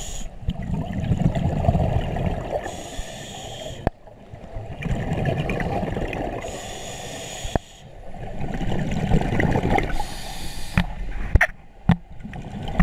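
Scuba diver breathing through an open-circuit regulator underwater, heard in three breath cycles. Each is a rumbling burst of exhaled bubbles followed by a shorter hissing inhalation, with a few sharp clicks in between.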